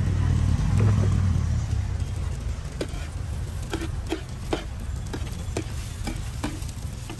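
Metal spatula clacking and scraping on a large flat griddle as short noodles with bean sprouts are stir-fried, with the food sizzling underneath. The clacks start about three seconds in and come roughly twice a second; a low rumble fills the first two seconds.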